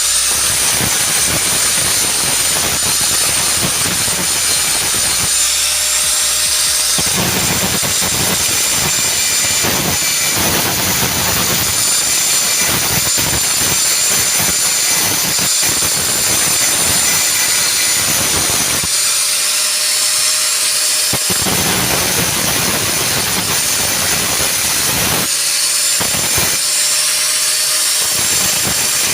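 Electric angle grinder grinding off the rivet heads of a washing machine spin-dryer motor casing: a loud, continuous grinding with a steady high whine. The lower grinding noise drops away briefly three times, leaving the whine.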